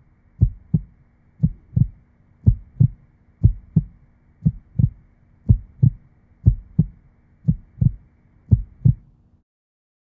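Heartbeat sound effect on the soundtrack: paired low thumps, lub-dub, about one beat a second, stopping about nine seconds in.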